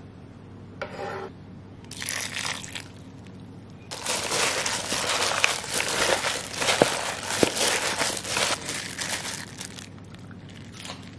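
Crinkling and rustling in short bursts: two brief ones in the first three seconds, then a dense stretch starting about four seconds in that dies away near the end.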